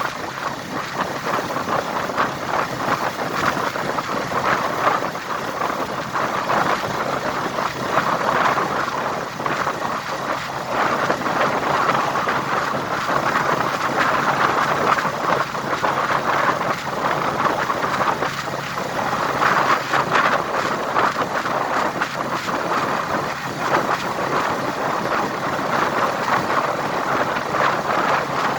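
Steady rushing wind and road noise from riding in a moving vehicle, with wind buffeting the microphone.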